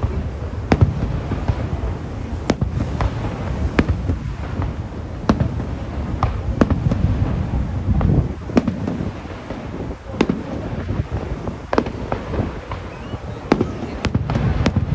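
Aerial fireworks bursting: sharp bangs at irregular intervals, roughly one a second, over a continuous low rumble.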